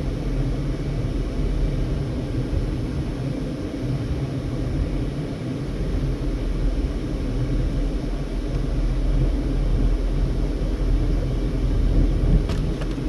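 Steady low rumble of a car's engine and tyres heard from inside the moving car, growing a little louder in the second half, with a brief sharp click near the end.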